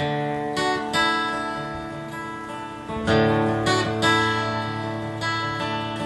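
Acoustic guitar starting suddenly with strummed, ringing chords, the instrumental introduction of a country song.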